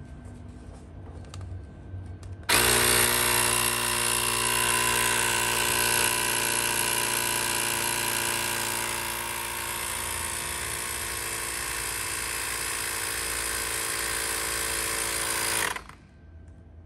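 CYCPLUS A5 portable electric inflator's compressor switching on abruptly about two and a half seconds in, running steadily as it pumps up a wheelbarrow tyre, and cutting off suddenly about a second before the end.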